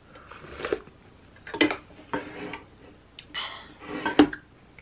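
Chopsticks and a ceramic bowl clinking on a wooden tray: about five separate clatters, the loudest near the end.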